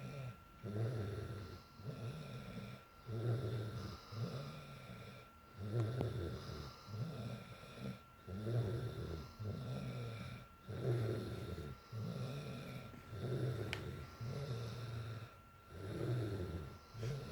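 A sleeping girl snoring steadily, about one rough snore every two to two and a half seconds with each breath.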